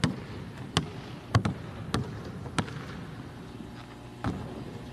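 Basketball bouncing on a hardwood court: a run of dribbles roughly half a second apart, then a pause and one more thud near the end.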